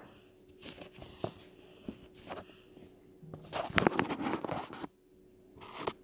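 Rustling and light clicks as small plastic toy figures are handled and set down, with a denser crinkly rustle lasting about a second around halfway through.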